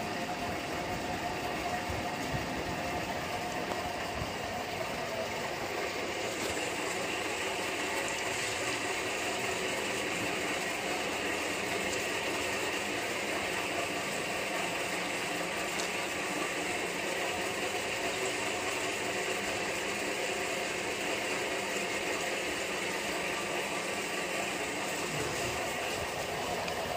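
Steady mechanical hum and hiss that keeps an even level throughout.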